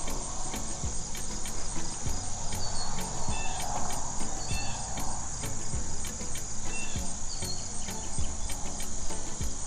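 Outdoor field ambience: steady high insect chirring, pulsing evenly, with a few faint short bird chirps now and then and a low rumble underneath.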